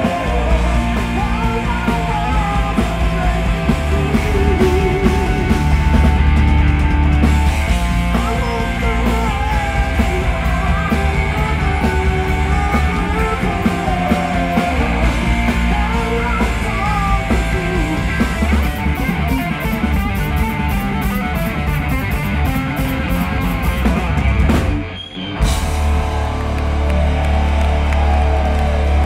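A live rock power trio plays loudly: distorted electric guitar through Marshall amplifiers, electric bass and a drum kit. Near the end the band stops dead for a moment, then crashes back in.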